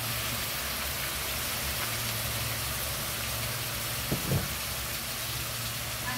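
Chopped chicken sizzling in a wok, a steady frying hiss over a low steady hum, with two short knocks about four seconds in.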